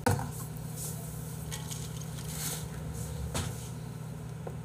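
Steady low electrical hum with a single knock right at the start and a few faint rustles and clinks.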